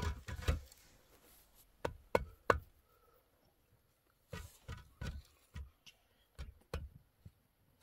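Sharp knocks of hollow concrete blocks being handled and set on a block wall: three close strikes about two seconds in, then a run of about seven more in the second half.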